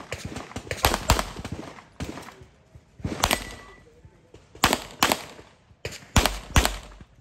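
Pistol shots fired in quick pairs, the double-taps of a practical-shooting stage run, four pairs with short pauses between.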